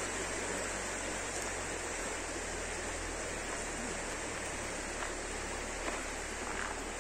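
Shallow stream rippling steadily over stones, with a few faint clicks near the end.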